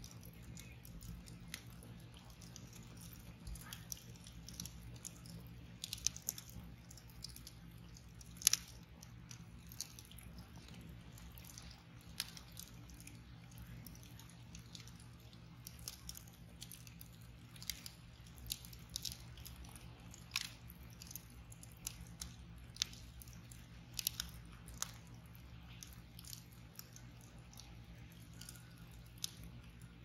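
Wood fire crackling in a steel fire pit, a log burning on embers: irregular sharp pops and snaps over a low steady hum, the loudest snap about eight and a half seconds in.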